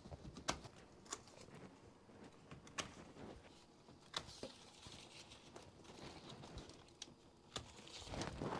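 Bypass pruners snipping grape-cluster stems: a handful of sharp, faint clicks at irregular intervals, with quiet handling in between.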